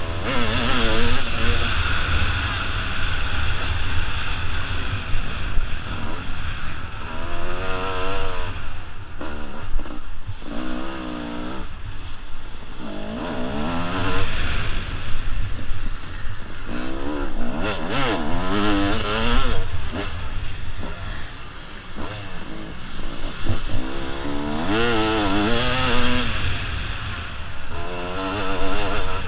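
1996 Kawasaki KX250's single-cylinder two-stroke engine at race pace, revving up and falling away over and over as the rider shifts and rolls off for corners. A constant low wind rumble on the microphone runs beneath it.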